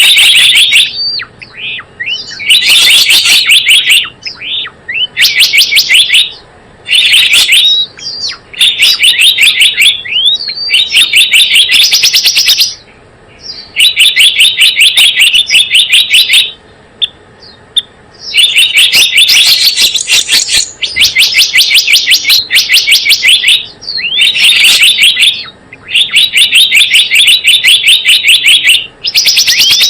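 Gelatik bloong bird calling in loud, repeated bursts of rapid chirps, each burst lasting one to two seconds with short pauses between them. This is a lure-call recording.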